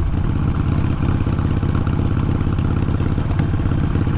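Harley-Davidson Sportster V-twin, bored out to 1275 cc, running steadily on light throttle while cruising during its break-in ride.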